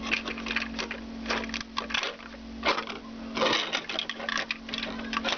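Plastic LEGO bricks clicking and rattling as a hand-held LEGO model is turned over and handled close to the microphone, in short irregular clicks.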